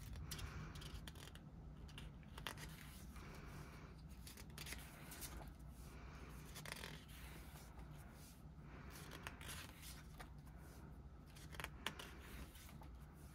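Faint rustling of glossy photo-book pages being turned by hand, with a few soft page turns spread through.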